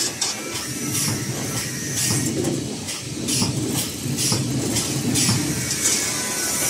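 CNC wire bending machine running, feeding and bending steel wire, with a steady mechanical din broken by rapid clicks and clanks.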